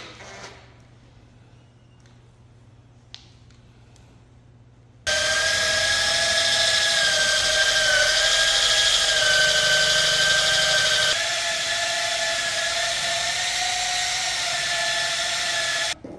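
Electric power tool running at steady high speed with a constant whine, starting about five seconds in after a quiet stretch with a single click, easing a little in level around eleven seconds, and cutting off abruptly near the end.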